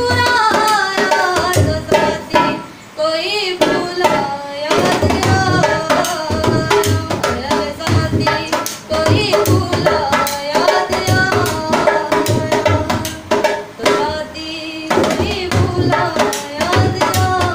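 A woman singing a Hindi song to a dholak, whose hand-drum strokes keep a steady beat under the melody.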